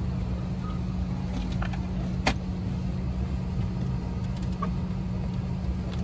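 Steady low drone of an airliner cabin after landing, with a sharp click about two seconds in and a few fainter ticks from passengers handling bags and overhead bins.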